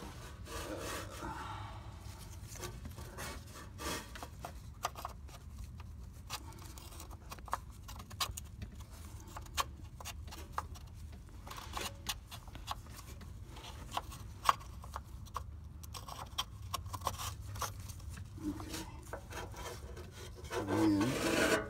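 Handling noise from hands and the Kostal sleeve removal tool being worked onto the 6R80 transmission's connector sleeve: rubbing and scraping with scattered small clicks over a low steady hum.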